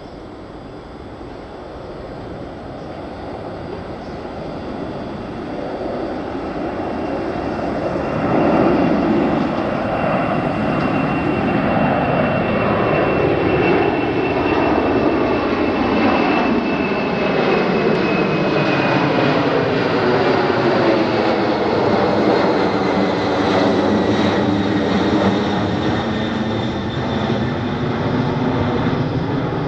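Boeing 747 jet airliner climbing out overhead after takeoff. Its four jet engines build over the first eight seconds to a loud, steady rush, with a whistling whine that falls slowly in pitch as the jet passes over.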